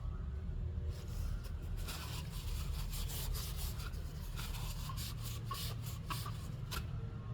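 Hands handling small metal parts of a motorcycle steering damper: irregular rubbing and scraping with light clicks, over a steady low hum.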